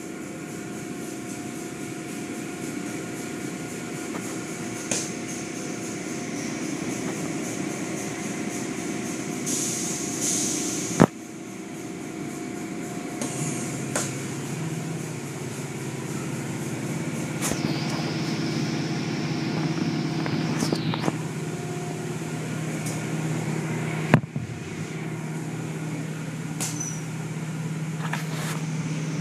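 Automatic tunnel car wash running: a steady hum of motors and pumps under spraying water and cloth brush strips swishing over a car. A few sharp knocks cut through, the loudest about eleven and twenty-four seconds in.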